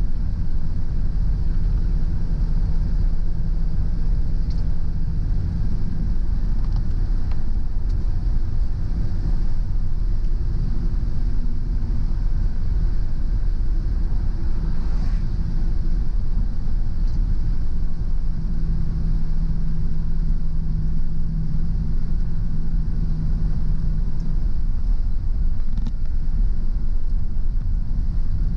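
Steady low rumble of a car driving along a road: engine hum with tyre and road noise, holding an even pace without revving up or down.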